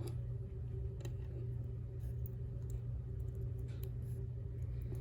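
Faint small clicks and handling noises of fingers working small parts, pressing rubber O-rings and a pivot ball into an aluminium RC crawler link, over a steady low hum.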